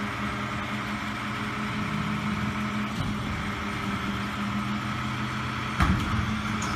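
Big truck's engine running with a steady low hum. A sudden thump comes near the end.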